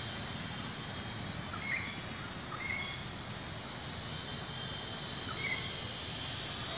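Small toy quadcopter drone flying with a steady high propeller buzz, with a few short bird chirps about two, three and five and a half seconds in.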